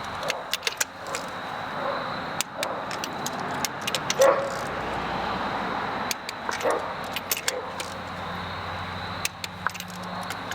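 Torque wrench ratcheting in short clicks and metal tools clinking as new spark plugs are tightened down to about 25 newton metres.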